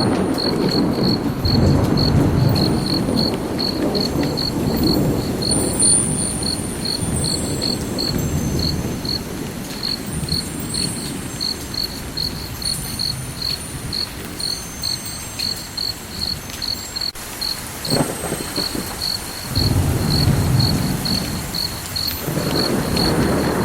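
A cricket chirping steadily, short high-pitched chirps at about two to three a second, over a low rumble that swells and fades.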